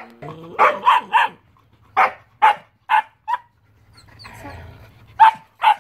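Dog barking in short, sharp barks, about ten in quick groups, with a breathy stretch of panting about four seconds in.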